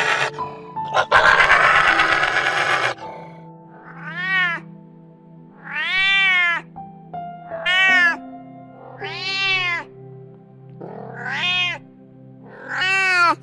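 A domestic cat meowing six times, each meow rising and then falling in pitch, about one every second and a half. It is preceded by two loud, harsh noisy sounds in the first three seconds. Background music with steady held notes plays throughout.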